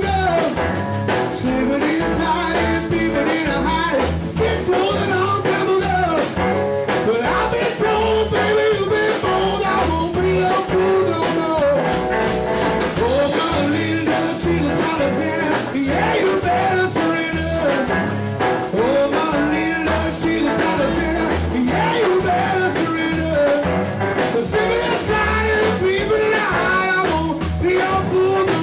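Rock and roll song: a man singing over electric guitar with a steady beat.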